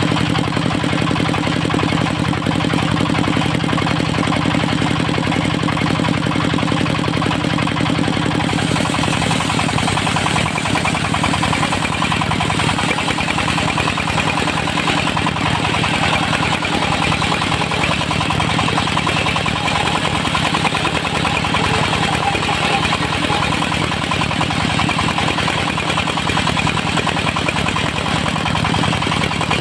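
Engine driving a mobile circular sawmill, running steadily. About eight seconds in, the sound turns rougher, with more hiss in the higher range and a weaker low hum.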